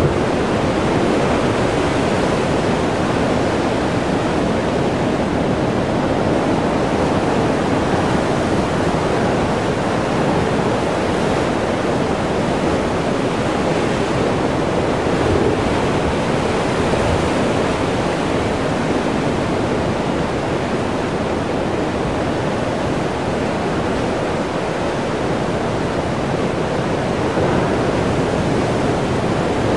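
Heavy ocean surf surging over rock shelves and into a narrow sea chasm: a steady, dense rush of breaking and churning water that never lets up.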